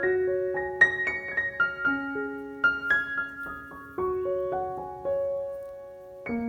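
Background piano music: a slow, gentle melody of struck notes over held lower notes, each note fading after it is played.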